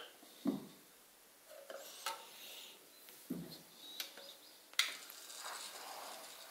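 A CD being set into a Sony CDP-XA50ES CD player: several sharp clicks and two dull knocks as the disc is handled and laid in the tray, then the loading mechanism running for the last second or so as the front panel closes.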